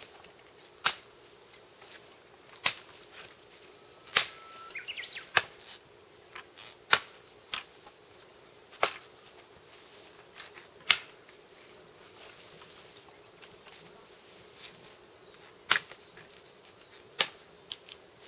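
Dry twigs and branches snapping with sharp cracks, about ten at irregular intervals, as cut pine saplings are handled and pulled through the brush.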